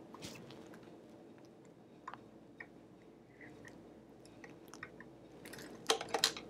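Faint scattered clicks and short scrapes of a screwdriver and small screws working against a vintage 1970s Kenmore sewing machine's frame, with a louder cluster of clicks about six seconds in.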